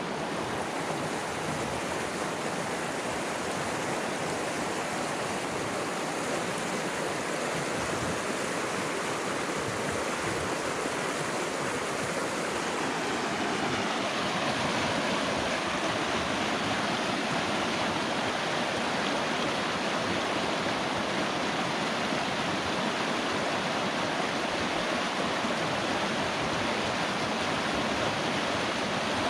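The Cimarron River, a fast mountain river, rushing over rocks and through rapids in a steady wash of water noise. About halfway through, the sound shifts and grows a little louder and fuller.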